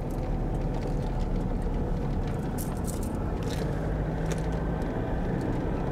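Car driving along a paved road, heard from inside the cabin: a steady low rumble of engine and tyres, with a few faint ticks about halfway through.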